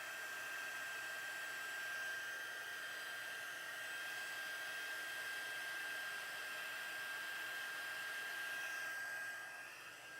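Embossing heat gun running steadily: a hair-dryer-like blowing hiss with a constant high whine from its fan motor, warming up before copper embossing powder is melted. It gets a little quieter near the end.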